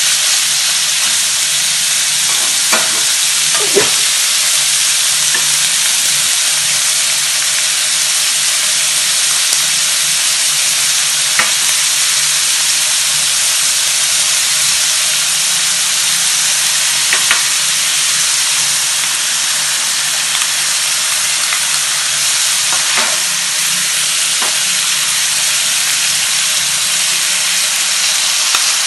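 Cow tongue pieces, garlic and shallots sizzling steadily as they stir-fry in a metal wok, with a few sharp clinks of the metal spatula against the pan.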